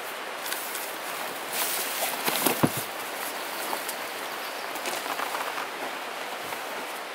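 Backpacks and camping gear being handled and lifted out of a car's cargo area: rustling of pack fabric and a few knocks, the loudest about two and a half seconds in, over a steady outdoor hiss.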